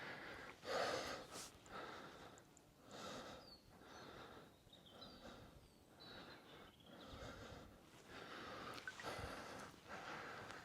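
A person's breathing close to the microphone, one breath about every second or so, with a few faint high chirps around the middle.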